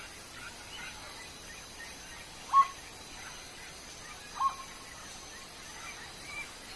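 Two short, sharp bird calls, about two and a half and four and a half seconds in, the first louder, over faint scattered bird chirps in the background.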